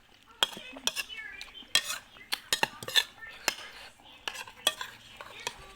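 Spoon or fork clinking and scraping against a bowl while eating: about a dozen sharp clinks at irregular intervals.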